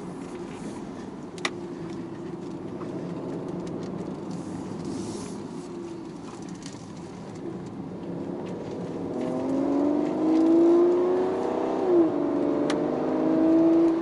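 Car engine under acceleration: a steady drone at first, then from about nine seconds in the revs climb with rising pitch. Near the end the pitch drops sharply, as at an upshift, and climbs again.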